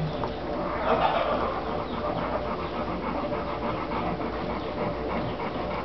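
Yellow Labrador retriever bitch panting steadily and rhythmically while puppies nurse at her side.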